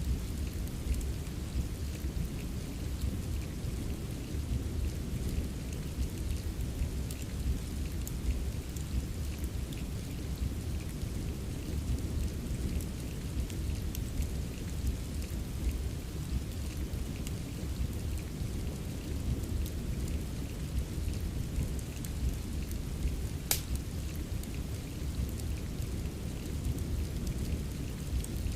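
Steady rain mixed with a crackling wood fire: a constant low rumble under the hiss of rain, scattered small crackles, and one sharper pop late on.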